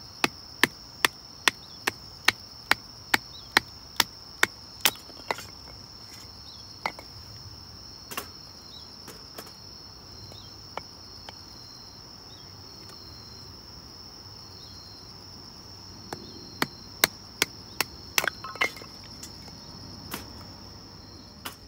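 Kindling being split by hand: a quick, even run of sharp wooden knocks, about two and a half a second, for the first five seconds, then a few scattered knocks and a second short run near the end. Under it, crickets and other night insects chirr steadily at a high pitch.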